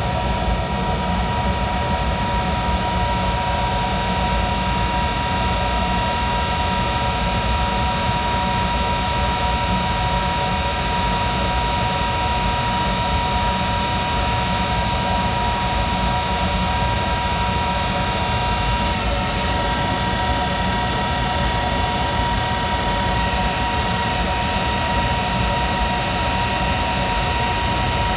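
Monarch 10EE engine lathe running steadily, a continuous machine drone with a high whine made of several steady tones. The tones shift slightly about two-thirds of the way through.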